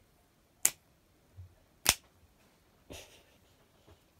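Sharp plastic clicks from a toy flying-spinner wristband launcher being worked by hand: two loud clicks about a second apart, with a softer click between them and another near the end.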